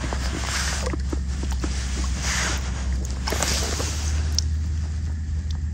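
Shallow water swishing and splashing against a stony bank as a hand holds a zander in the water and lets it swim off: several soft swishes a second or two apart, with small clicks, over a steady low rumble.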